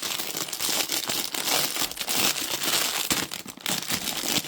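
Crinkly packaging of makeup tools being handled and rustled, a continuous run of fine crackles.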